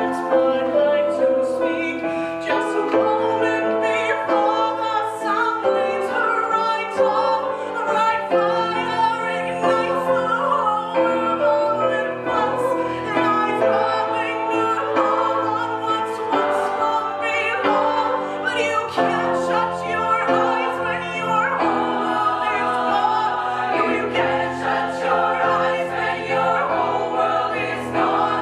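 Live choral music: a choir and a solo singer with a microphone singing sustained notes over instrumental accompaniment.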